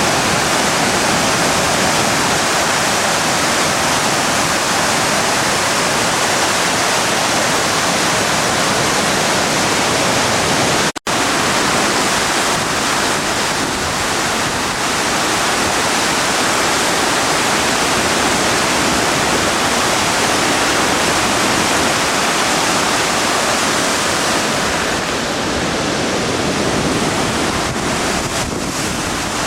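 Driva river in heavy flood, its water rushing and churning in a loud, steady roar-like noise. The flood is a 50-year flood of about 1000 cubic metres per second. The sound breaks off for an instant about a third of the way through.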